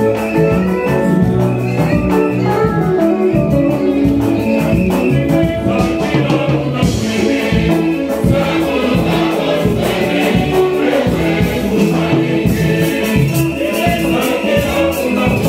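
Choir singing church music with instrumental accompaniment and a steady percussion beat.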